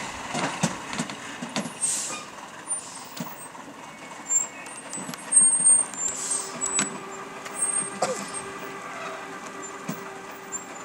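A loaded Ashok Leyland lorry working slowly around a tight hairpin bend, its engine running under load, with irregular sharp knocks and clunks. Short hisses of the air brakes come about two seconds in and again about six seconds in.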